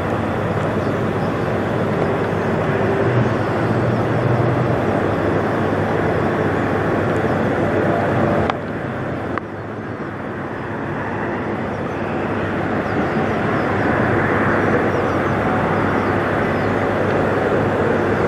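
International semi truck's diesel engine running as the rig rolls slowly across the lot, a steady drone. It drops abruptly about eight and a half seconds in, then slowly rises again.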